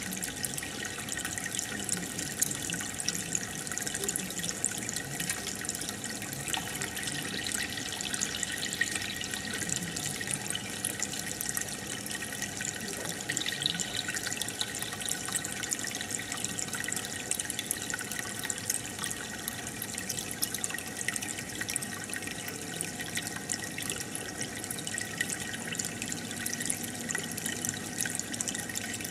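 Aquarium water bubbling and trickling steadily, full of tiny pops and splashes from aeration bubbles breaking at the surface.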